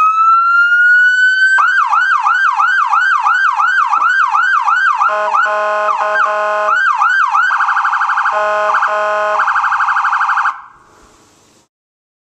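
Whelen electronic police siren through a Wolo 100-watt speaker, running through its tones: a rising wail, then fast up-and-down yelp sweeps, then a lower buzzing horn tone in short blasts mixed with a very rapid warble. It cuts off about ten and a half seconds in.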